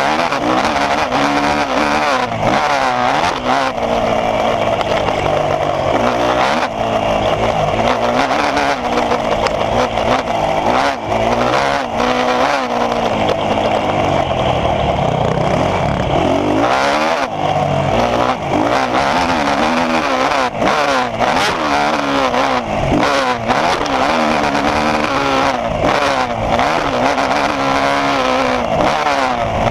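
Motocross bike engine being ridden hard, revving up and dropping back again and again as the rider accelerates, shifts and brakes through the track's bends and jumps.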